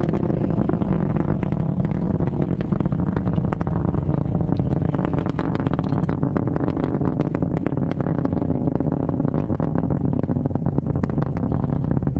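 Delta IV Heavy rocket's three RS-68 engines during ascent: a steady, deep rumble with dense crackling throughout.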